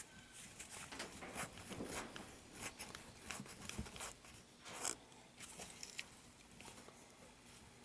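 Faint, irregular clicks, taps and scrapes of hands handling washing-machine supply hoses and threaded valve fittings.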